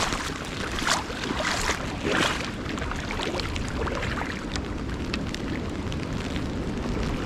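Steady rush of river water with wind buffeting the microphone. A few louder swishes and small clicks in the first couple of seconds.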